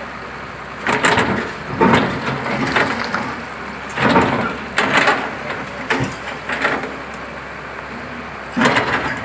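Excavator breaking apart a reinforced concrete building: irregular loud crunching and cracking as slabs and masonry give way and rubble falls, over the machine's steady running.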